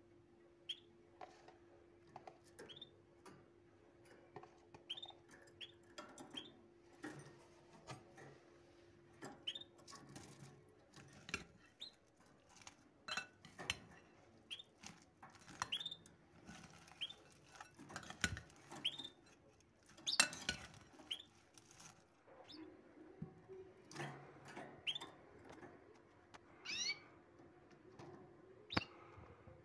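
An animal's short, high chirping calls that sweep upward in pitch, repeated irregularly every second or two, with a few sharp clicks over a faint steady hum.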